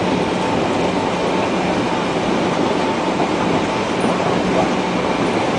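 Subway train running at speed, a steady rumble and hiss of wheels and car body heard from inside the carriage, with a faint steady hum under it.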